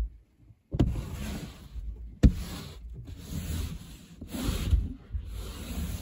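Snow brush sweeping snow off a car's windshield, heard from inside the car: a run of scraping strokes on the glass, each about a second long, with one sharp knock a little past two seconds in.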